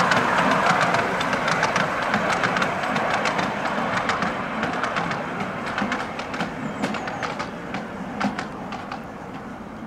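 Miniature ride-on railway train running along the track, its wheels clicking over the rail joints, fading steadily as it moves away.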